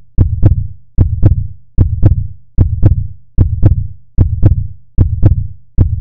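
Deep double thumps in a steady heartbeat rhythm, one pair about every 0.8 seconds, each thump with a sharp click on top: an electronic heartbeat-style beat under the logo outro.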